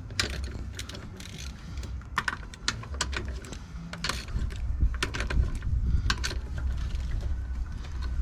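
Irregular mechanical clicks and clanks of hand work on a car, over a steady low rumble.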